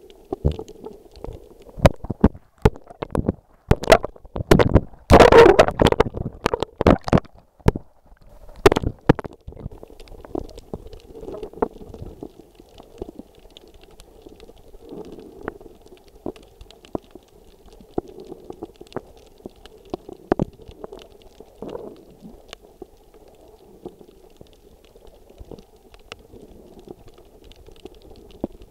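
Underwater sound through a camera's waterproof housing: a steady muffled water hum, with many sharp clicks and a loud rush of water noise about five to seven seconds in. After about nine seconds it settles to the quieter hum with scattered faint clicks.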